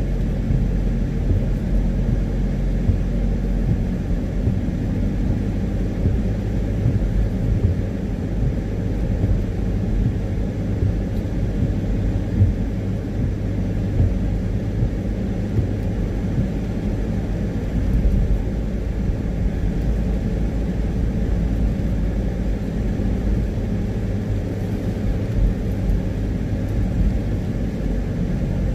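Steady low rumble of a car's engine and tyre noise, heard from inside the cabin while driving on a wet road.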